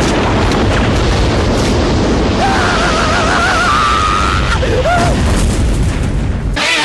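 Heavy, continuous explosion rumble, a cartoon sound effect. A wavering high tone rides over it for a couple of seconds in the middle. The rumble cuts off suddenly near the end as guitar music starts.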